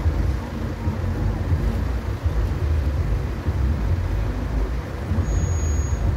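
Road traffic noise: a steady low rumble of vehicles held in a queue at a standstill, with no distinct event.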